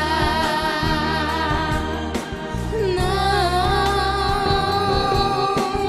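Portuguese-language gospel worship song: a singer holds long notes with vibrato over a steady band accompaniment of bass and sustained chords, moving to a new note about three seconds in.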